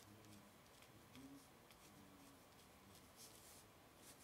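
Faint scratching of a fine-tip water-based pen drawing short strokes on watercolour paper, otherwise near silence.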